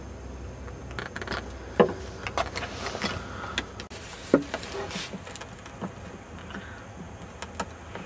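Scattered clicks, scrapes and small metal clinks of a knife cutting away the moulded plastic of a power adapter's DC plug held in locking pliers, with two sharp knocks about two seconds in and just past four seconds. The handling sounds thin out in the last few seconds.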